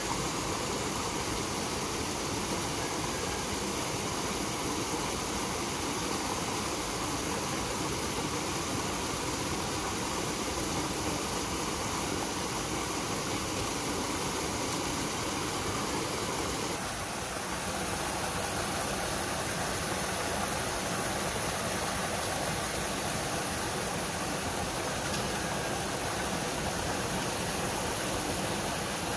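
Steady rushing of a small waterfall into a stream pool, an even hiss that never breaks; a little past halfway its tone turns slightly brighter.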